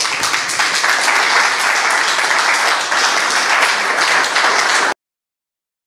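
Audience applauding, a dense steady clapping that cuts off abruptly about five seconds in.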